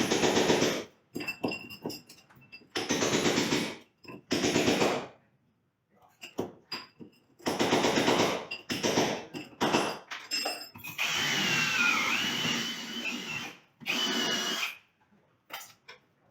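Electric drill run in about six short bursts of a second or so each, stopping and starting. The longest burst, near the end, has a whine that wavers up and down in pitch as the motor speed changes.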